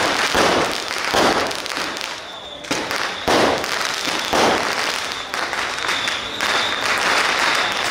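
A string of firecrackers crackling in rapid, dense pops. It thins briefly about two seconds in and picks up again sharply, with crowd voices underneath.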